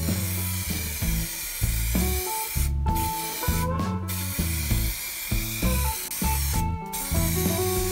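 Aerosol spray paint can hissing as paint goes onto a wheel rim, cut by a few short breaks, over background music.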